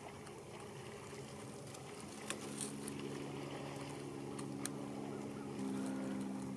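A faint, steady engine drone comes in about two and a half seconds in and gets a little louder and higher-pitched near the end. Two faint sharp clicks sound, one a little after two seconds and one about four and a half seconds in.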